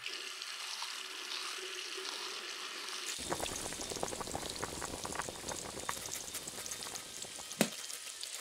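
Food frying in a pan: a steady hiss that becomes a fuller sizzle with crackles from about three seconds in, and one sharp click near the end.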